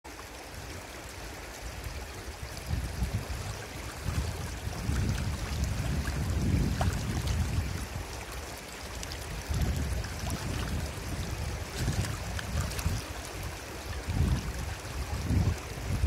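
Shallow stream running over stones, with gusts of wind buffeting the microphone in uneven low rumbles.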